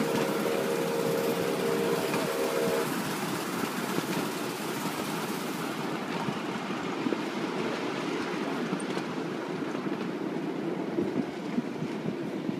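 Ride-on miniature railway train rolling along its track with a steady rumble and clatter, heard from a passenger car. The locomotive's whistle sounds a multi-note chord for about the first three seconds.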